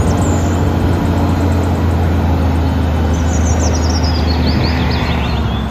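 Diesel engine of an eight-wheel tipper lorry running with a steady low hum while the tipper body is raised. Birds chirp near the start and again from about three seconds in.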